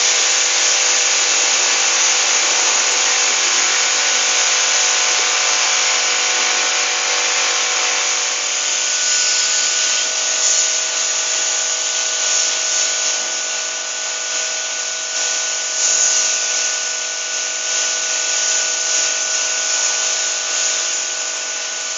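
A pressure washer spraying water: a loud, steady hiss with the pump's steady tones under it, which shift slightly about nine seconds in.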